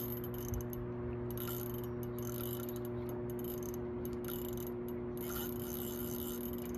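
A spinning reel ticking mechanically under strain as a large hooked sturgeon pulls against the line, over a steady low hum.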